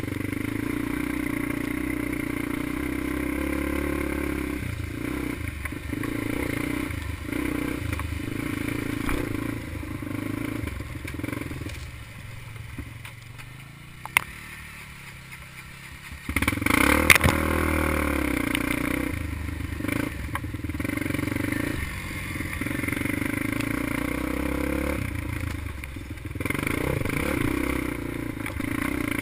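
ATV engine running as it is ridden along a trail, the throttle rising and falling with the terrain. About halfway through it drops back near idle for a few seconds, then is opened up hard and revs up loudly.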